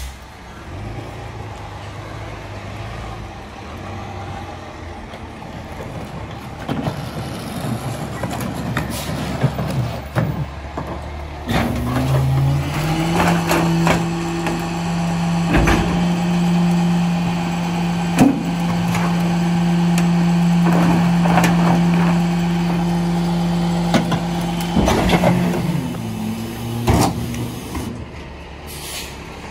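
Mack Granite garbage truck's diesel engine idling, then revving up about eleven seconds in and holding a steady higher pitch for roughly fifteen seconds while the Leach rear-loader's packing mechanism runs, before dropping back to idle near the end. Sharp bangs and knocks come from a trash cart being tipped and emptied into the hopper.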